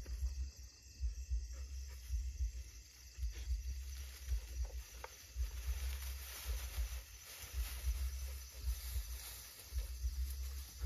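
Footsteps and rustling through dry undergrowth, with irregular low thumps of the hand-held camera being jostled and a faint steady high hiss of night insects.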